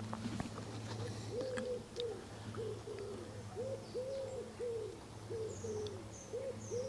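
A bird calling a steady series of short, low hooting notes, each rising then falling, about two a second, over a faint steady low hum.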